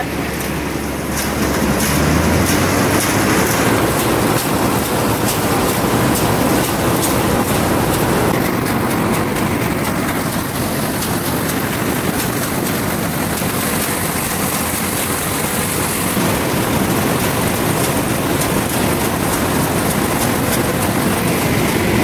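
Combine harvester running while cutting rice: a steady engine hum under a dense mechanical rattle from the cutting header and reel.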